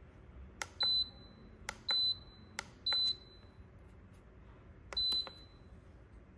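Re・De Pot electric pressure cooker's control panel beeping as its buttons are pressed: four short, high beeps, each just after a small click, the first three about a second apart and the last one after a longer pause, when warming mode is selected and started.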